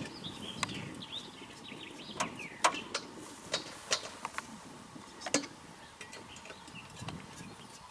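Scattered sharp clicks and knocks, about eight of them, as a biplane's wooden propeller is pulled through by hand to turn the engine over before starting, with faint birdsong behind.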